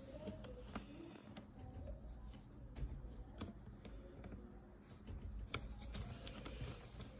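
Faint, scattered small clicks and ticks of a precision screwdriver working a tiny screw into the metal frame of an Apple USB SuperDrive, with the sharpest click about five and a half seconds in.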